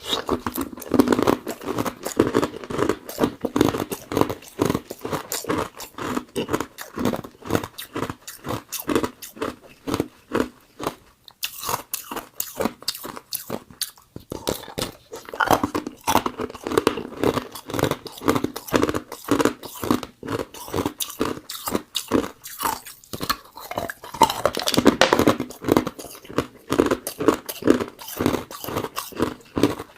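A person crunching and chewing Igloo ice with the teeth, close to the microphone: rapid, dense crunches that keep going with only a brief lull about halfway through.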